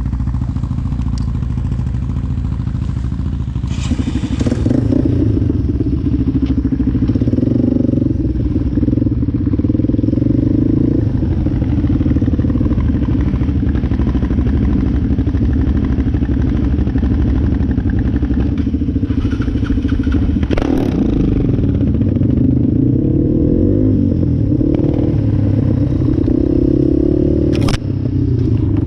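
Yamaha Timberwolf 250 ATV's single-cylinder four-stroke engine running steadily while riding, its pitch rising and falling a little with the throttle. A few brief clatters along the way, one near the end.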